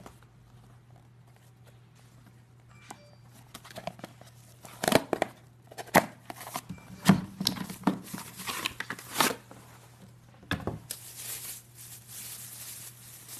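Packaging being handled and opened: a cardboard box with a clear plastic window is pulled apart, giving irregular crinkles, rips and sharp clicks of stiff plastic and card. Near the end the plastic bag around the mug rustles steadily.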